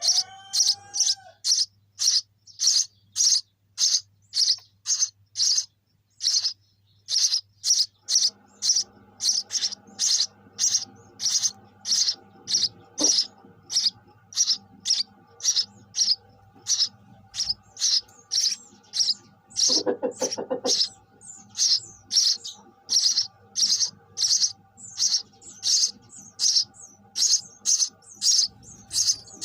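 Sparrow chirping over and over in short, high chirps, about two a second, with a brief lower-pitched call about twenty seconds in.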